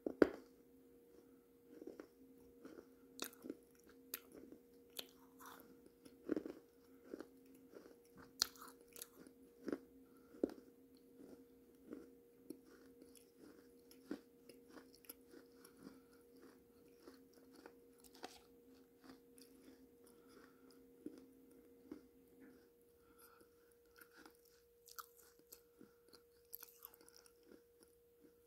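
Close-up mouth sounds of someone eating a thick pot paste (ground clay) off a spoon: irregular wet clicks and smacks of chewing and swallowing. A faint steady hum sits underneath, its lower tone dropping out near the end.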